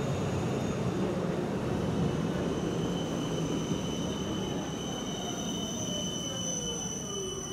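Electric tram passing close by on street track: a low rumble of wheels on rails with a thin, steady high-pitched whine over it. Near the end it eases off as it moves away, with a tone sliding down in pitch.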